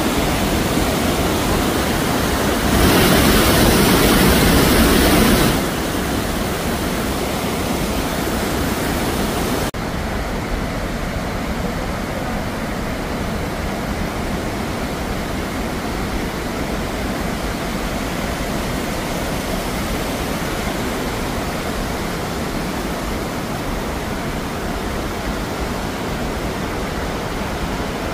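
The Rhine Falls' white water rushing in a steady, dense roar. A louder stretch comes a few seconds in, and about ten seconds in the sound changes abruptly to a duller, less hissy rush.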